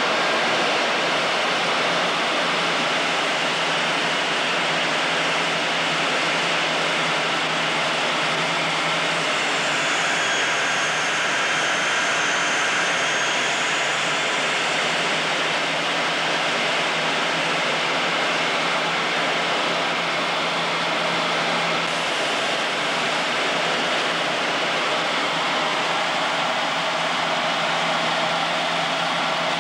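Steady rushing noise inside a MiG-21 jet fighter's cockpit in flight: airflow over the canopy and the turbojet engine, with a faint low hum underneath. A faint high whistle swells and fades around the middle.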